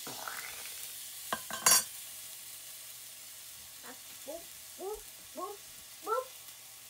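Pancakes sizzling in hot oil in a cast-iron skillet just after one is flipped, the sizzle slowly easing. About a second and a half in, a metal spatula clacks twice against the pan. Near the end comes a string of short rising voice sounds.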